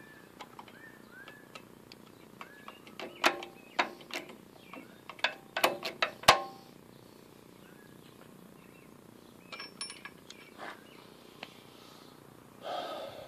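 Sharp clicks and knocks of metal being handled while the 1947 Wards Logan lathe's oil points are lubricated, loudest and closest together between about three and six seconds in, with a few softer clicks around ten seconds in.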